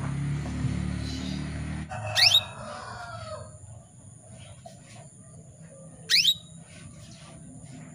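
Female canary giving short, sharp rising call notes: two loud ones about four seconds apart, with fainter chirps between. A low rumble fills the first two seconds.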